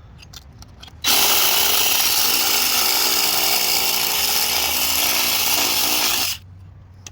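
Handheld power tool cutting into the exhaust pipe's steel to enlarge the oxygen sensor hole, running steadily under load for about five seconds with a whine, starting abruptly about a second in and cutting off suddenly.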